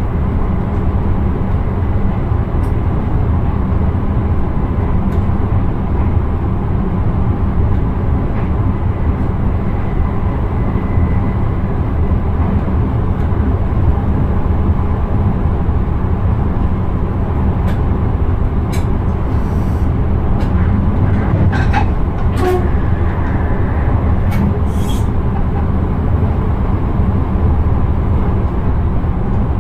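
Intercity train running at speed, heard from inside the driver's cab: a steady low rumble of wheels on rails and running gear. A few short clicks and ticks come in the second half.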